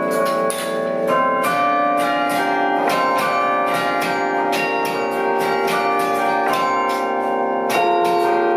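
Bells ringing in quick succession, about three or four strikes a second, each tone ringing on under the next so several pitches overlap.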